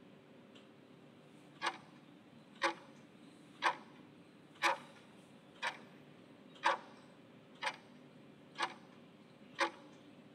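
Clock-tick sound effect of a quiz countdown timer: nine short, evenly spaced ticks, one a second, starting about a second and a half in.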